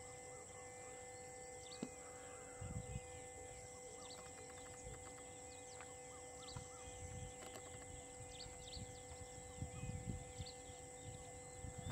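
Outdoor wildlife ambience: scattered short bird chirps over a faint steady high hum, with patches of low rumbling that come and go from about three seconds in and grow near the end.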